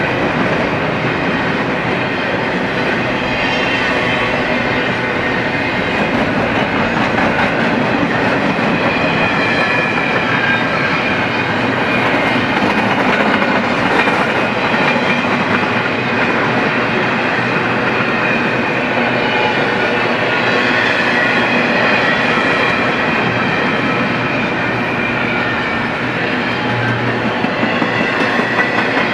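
Double-stack container well cars of a BNSF freight train rolling past close by: steady, even wheel-on-rail noise with thin high tones running over it.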